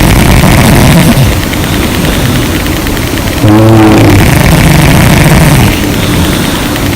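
A sleeping woman snoring loudly. One snore ends about a second in and another starts about halfway through and lasts about two seconds, with rough breathing between.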